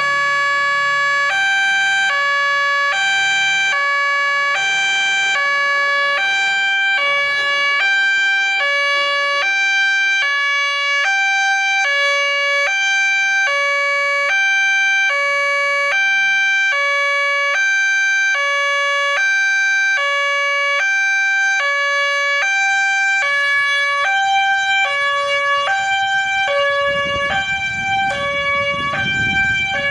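Railway level-crossing warning siren starting suddenly and sounding steadily, a harsh, hoarse electronic two-tone alarm alternating between a lower and a higher note about every half second, warning of an approaching train. A low rumble comes in near the end.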